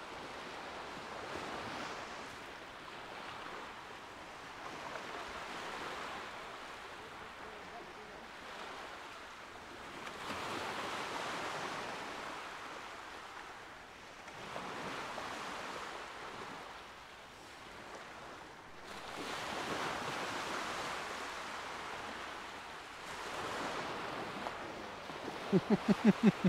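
Surf breaking on a sandy beach, a rushing wash that swells and fades every four to five seconds. Near the end a man bursts into loud laughter.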